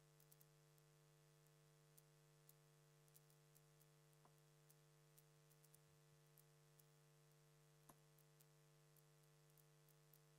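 Near silence: a faint steady electrical hum with scattered faint ticks and clicks.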